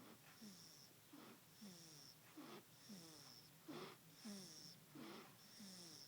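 Baby snoring, faint: quick, rhythmic breaths about every half second or so, each with a short falling squeak and many with a thin high whistle.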